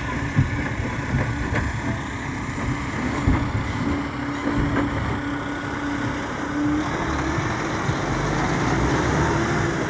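Heavy diesel dump truck engine running, a steady low rumble with a held drone, which turns a little higher and louder in the last few seconds.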